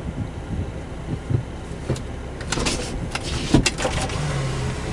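Car cabin noise with the engine running at low speed, and a handful of sharp clicks and rustles from about two and a half seconds in, the loudest near the end.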